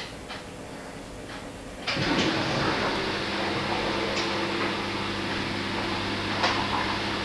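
A few light clicks, then about two seconds in a machine starts up and runs with a steady hum and hiss, with occasional clicks over it.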